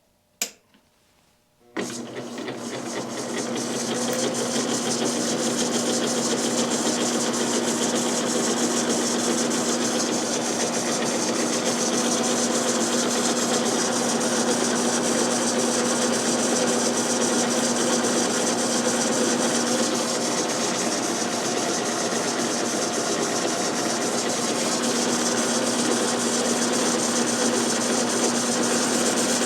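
A sharp click, then about two seconds in a metal lathe starts up, builds speed over a couple of seconds and runs steadily with a constant hum. The lathe is set up to bore out a motorcycle tappet guide block.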